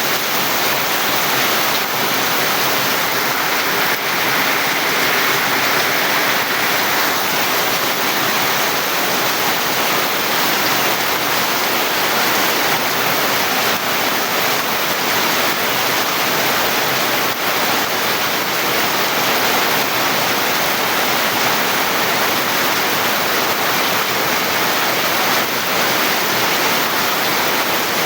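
Steady rain falling, an even rushing hiss that swells slightly a few seconds in.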